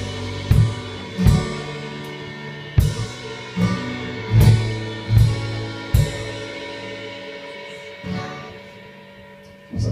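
A live band ending a song: a held chord rings out while the drummer plays about seven spaced drum and cymbal hits, and the sound then dies away.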